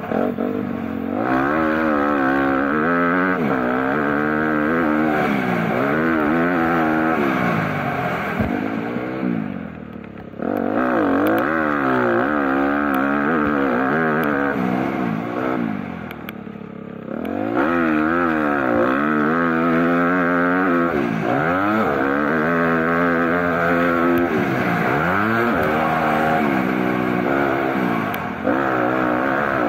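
A motor vehicle's engine driven hard round a track, revving up and easing off again and again as the pitch climbs and falls every second or two. It twice drops off further for a moment, about a third and just over halfway through, before picking up again.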